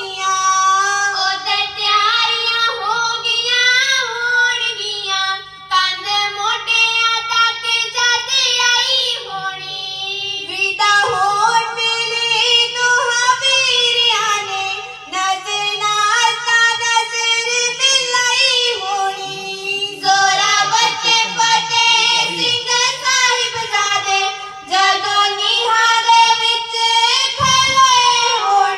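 Children singing kavishri, the Punjabi ballad style, together as one high melodic line through microphones. Long held notes, with short breaks between phrases.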